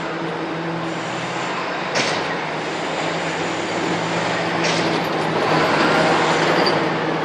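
A low, steady droning hum made of a few held tones over a constant rushing noise, with a brief swish twice in the middle and once near the end. It is the unexplained 'weird humming sound' heard from the sky.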